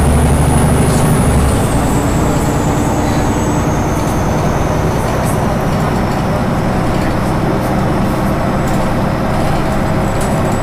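Cabin noise inside a Solaris Urbino 18 articulated bus on the move: a steady drive drone, heavy at first and dropping off about a second and a half in, with a faint high whine that slowly falls in pitch and small rattles from the bus interior.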